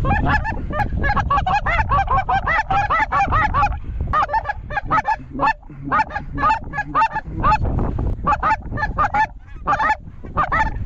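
Goose calls blown in a rapid run of short honks and clucks, several a second with brief pauses, calling to a flock of geese on approach.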